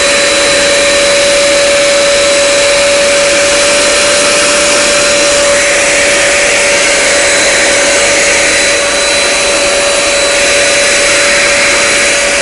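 Handheld portable vacuum cleaner running steadily while vacuuming a laptop keyboard: a steady motor whine over rushing air. About halfway through, the hiss of the air grows a little brighter as the nozzle moves.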